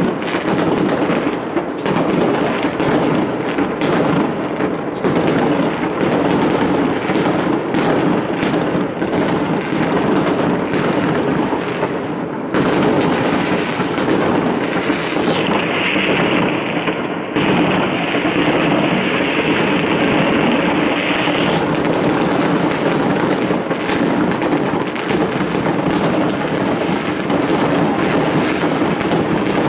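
Many fireworks going off at once: a dense, unbroken din of bangs and crackling, duller for a few seconds midway.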